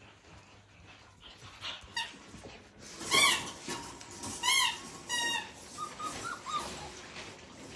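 Australian cattle dog puppy giving three loud, high-pitched yelps in quick succession, each rising and falling in pitch, followed by a few softer, shorter whimpers.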